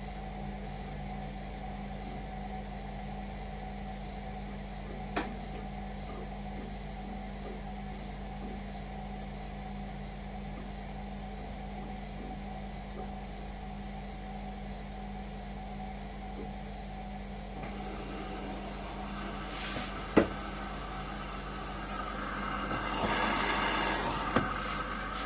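Indesit washing machine running through its wash with a steady hum. A short click comes about five seconds in and a single sharp knock about twenty seconds in, then a swishing sound swells and fades near the end.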